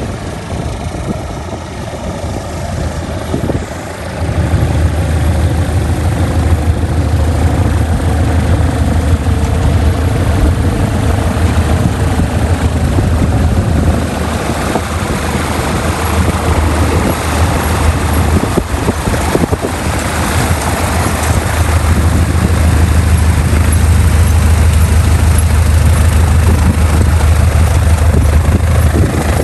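Robin DR400 light aircraft's piston engine and propeller running at taxi power as the plane taxis up and passes close by. The drone grows louder about four seconds in and is loudest near the end.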